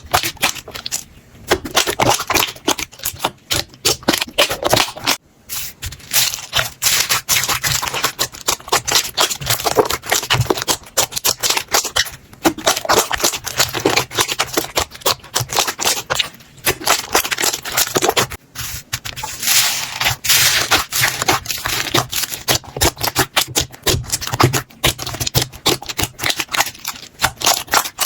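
Slime being squeezed and worked by hand, a fast, dense run of sticky clicks and crackles in clusters with short pauses.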